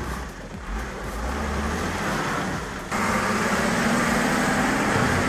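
A vehicle engine running steadily, growing louder about three seconds in.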